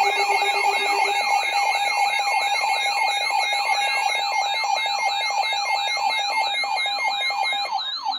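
Several weather alert radios sound their alarms at once, signalling an incoming weather warning. One siren-like tone sweeps up and down about three times a second over a fast-warbling high tone and steady beeping tones. One steady tone stops about a second in, and another stops near the end.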